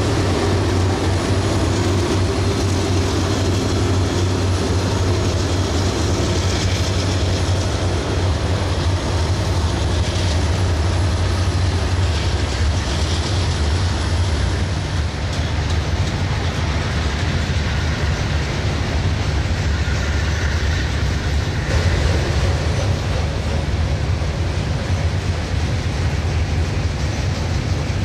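Diesel freight train passing, its locomotive engines working with a steady low drone over the noise of the cars rolling on the rails.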